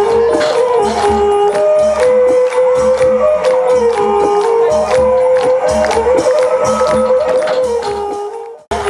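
Traditional Thai music: a stepping melody over a steady drum beat with bright metallic percussion strikes. It fades and cuts off briefly near the end, then starts again.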